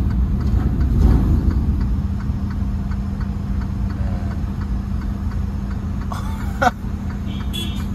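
Semi tractor's diesel engine running steadily, heard from inside the cab, with faint regular ticking and a brief higher gliding sound about six and a half seconds in.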